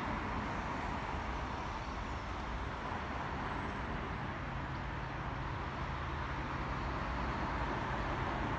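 Steady outdoor urban background noise: a low rumble of distant road traffic, with a faint low hum joining about halfway through.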